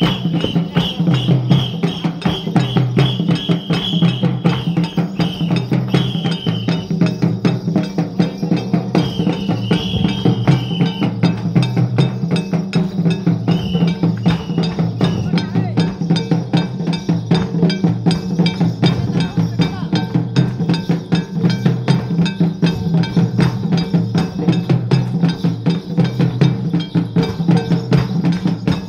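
Santhal folk dance music: a barrel drum and other percussion keep a fast, steady beat, with a high wavering melody line over it for the first ten seconds or so and again briefly a little later.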